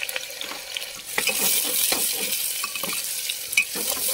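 Sliced onions sizzling in hot mustard oil in a pressure cooker. The sizzle grows louder about a second in, with scattered clicks of a spoon stirring against the pot.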